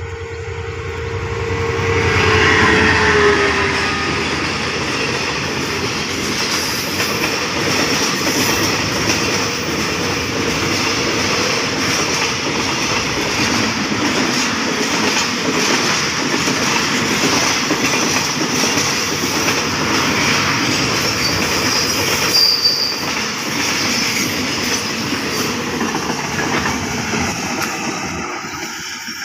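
A diesel-electric freight locomotive and its train of container flatcars passing close by: a steady tone from the locomotive drops in pitch about three seconds in as it goes past, then the wagons' wheels clatter over the rails. There is a brief high wheel squeal about two-thirds of the way through, and the sound fades near the end.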